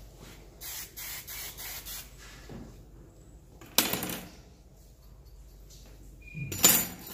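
iGroom Freeze It hairspray sprayed onto a poodle's topknot in short hissing bursts. There is a quick run of sprays in the first two seconds, then a louder single burst in the middle and another near the end.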